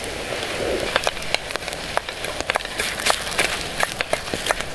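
Wood campfire crackling: irregular sharp pops, several a second, over a steady hiss.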